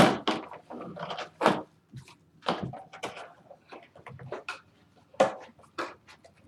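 Irregular short clicks, knocks and rustles of objects being handled on a tabletop, about a dozen in a few seconds, the first the loudest.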